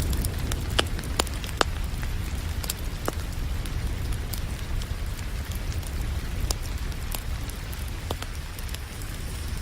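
Wood fire crackling with scattered sharp pops, the loudest three close together about a second in, over a steady hiss of rain and a constant low rumble.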